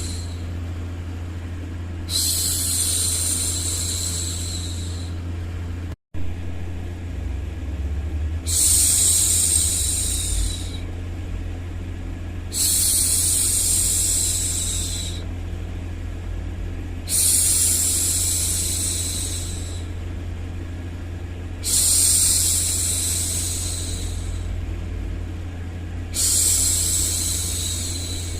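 A woman's voice repeatedly shushing 'shhh' to soothe a baby, each shush lasting about two and a half seconds and coming roughly every four and a half seconds, seven in all, over a steady low white-noise hum. The sound cuts out for an instant about six seconds in.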